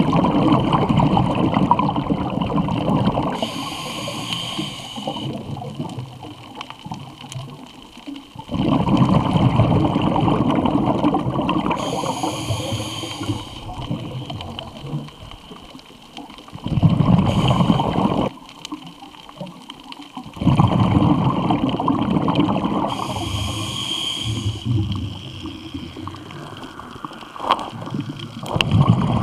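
Scuba diver breathing through a regulator, heard underwater: long rushing bursts of exhaled bubbles alternate with the regulator's brief high hiss on each inhale, about four breaths in all.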